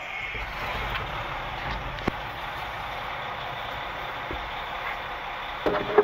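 Caterpillar C13 diesel engine of a concrete mixer truck idling just after start-up, heard from inside the cab. There is a sharp click about two seconds in and a louder knock near the end.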